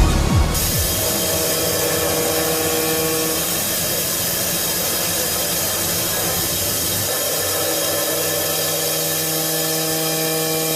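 CNC machine tool cutting metal: a steady grinding noise with several held tones that shift in pitch a few times. The tail of electronic music fades out in the first half second.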